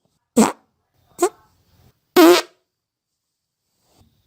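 Human farts: three short pitched farts about a second apart, the third a little longer than the others.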